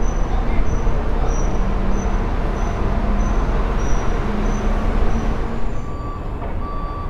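Bus-station din: the low rumble of a bus engine running nearby over steady traffic noise, with a short high pip repeating about every half second for the first five seconds. The noise eases slightly near the end.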